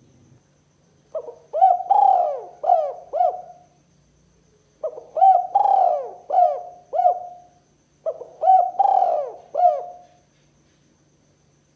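Spotted dove cooing: three phrases of several arching coo notes each, a second or so apart.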